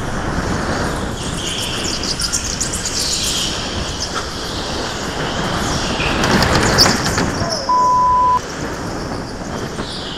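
Go-kart running hard on an indoor track, heard from its onboard camera: a steady rush of kart and tyre noise with short high tyre squeals through the corners. A loud flat beep sounds for about half a second near the 8-second mark.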